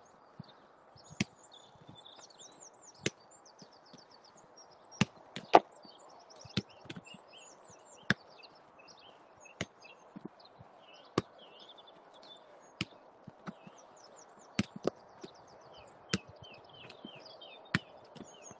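A football being kicked and touched repeatedly during a dribbling and passing drill, sharp knocks about once a second, with a loud pair a little over a quarter of the way in. Birds chirp in the background.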